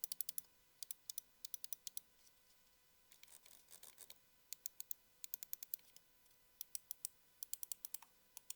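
Gaming mouse buttons clicked in quick bursts of several sharp clicks, with a soft scrape around three to four seconds in.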